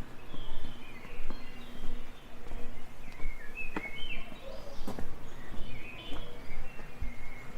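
Small birds chirping and warbling over a low, steady background hum, with a couple of sharp clicks about four and five seconds in.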